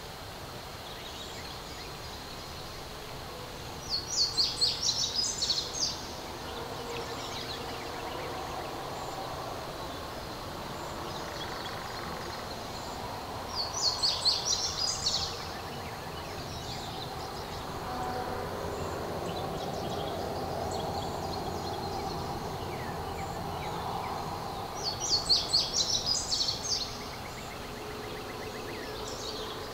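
A small songbird singing a short, high phrase of rapid notes, about two seconds long, three times roughly ten seconds apart, over a steady background hum of outdoor noise.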